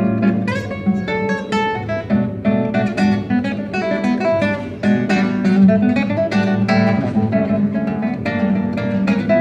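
Acoustic guitar playing an instrumental piece: a busy run of plucked notes over a steady low bass line.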